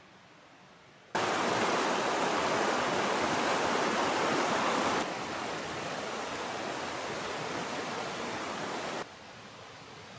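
Shallow mountain stream rushing over rocks, an even watery roar that comes in suddenly about a second in, drops to a lower level about halfway through, and cuts off about a second before the end, leaving a faint outdoor hiss.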